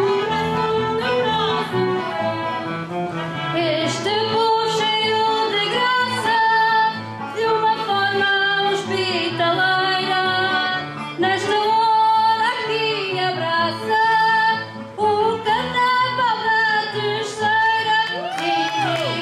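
Live Azorean carnival bailinho song: a group of women singing into microphones, backed by a small band with flute, guitar, trumpet and clarinet.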